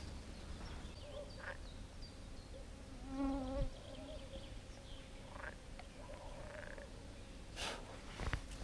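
A frog croaking once near the water, a short pitched call about three seconds in, over quiet outdoor background with a few faint light clicks.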